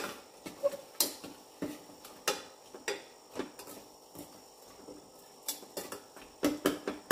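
Steel ladle stirring masala in a stainless steel pressure cooker, clinking and knocking against the pot's metal sides at an uneven pace, about one knock every half second to second.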